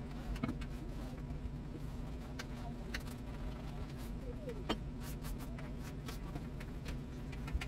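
Scrubbing a kitchen countertop by hand, with scattered light clicks and taps over a steady low hum.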